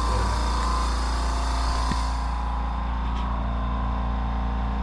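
Steady low hum of a running motor, with a high hiss that dies away about two seconds in.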